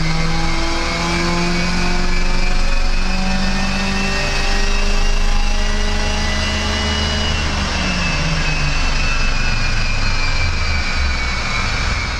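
Mercedes-Benz CLK 230 Kompressor's supercharged 2.3-litre four-cylinder pulling hard on a chassis dyno, heard from inside the cabin. The revs climb for about seven seconds, then drop away as the throttle is let off.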